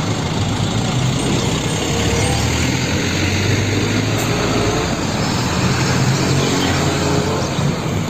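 Heavy diesel dump truck driving past: a low, steady engine hum under road and tyre noise.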